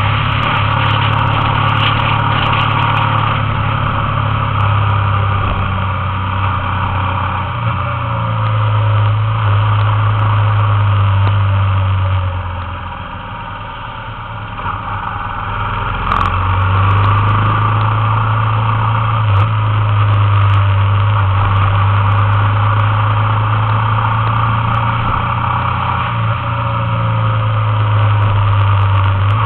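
Motorbike engine running steadily at riding speed, with wind and road noise. The engine note drops away about twelve seconds in and comes back a few seconds later.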